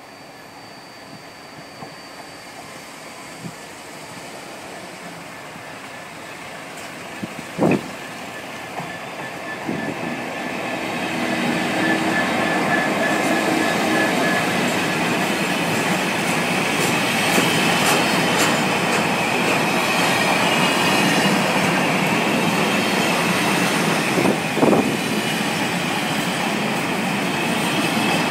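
Class 66 diesel-electric freight locomotive with its two-stroke V12 engine approaching and passing, growing louder over the first ten seconds or so. Its train of car-carrier wagons then rolls past with a steady rumble and rattle. There is a brief sharp knock about eight seconds in and a smaller one near the end.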